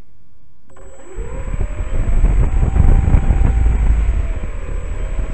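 A radio-control model airplane's motor and propeller spin up from rest about a second in, the motor tone rising in pitch as it throttles up for the takeoff run. Heavy wind rumble on the onboard microphone comes with it and is loudest in the middle.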